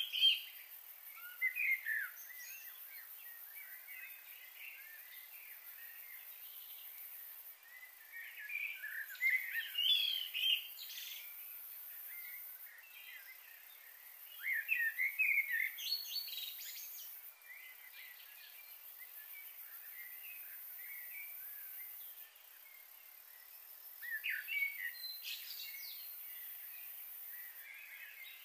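Birds chirping in several bouts of quick calls a few seconds long, over a faint steady high hiss.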